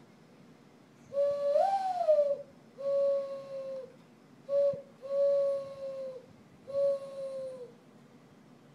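Person imitating a mourning dove's cooing call: five hollow hooting notes, the first rising and then sliding down, the rest steady, each dropping off at its end.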